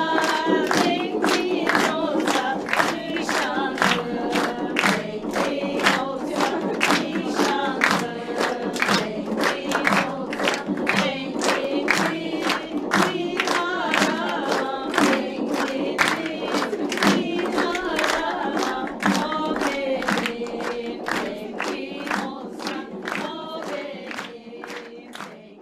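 Music with group singing over a steady, sharp beat, fading out near the end.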